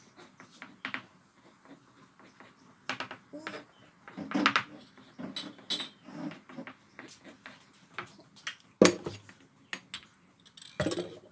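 Kitchen utensils and cookware clicking and knocking now and then as food is handled on a cutting board and around a rice cooker and frying pan.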